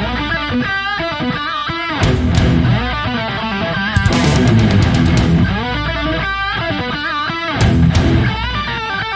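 Rock music with electric guitar: a riff with bending notes over a heavy bass line.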